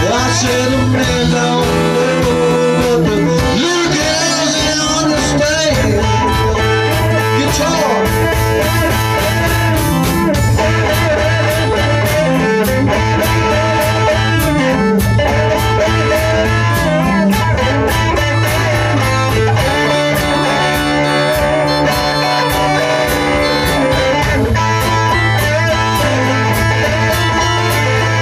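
Blues-rock music led by guitar over held bass notes that step from one pitch to another, playing without a break.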